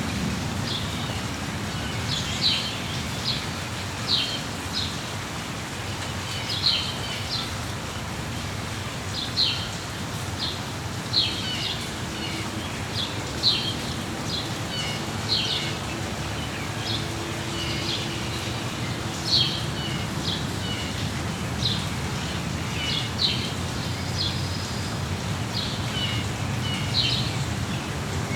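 Small birds chirping in short, high calls, one or two a second throughout, over a steady hiss of falling rain.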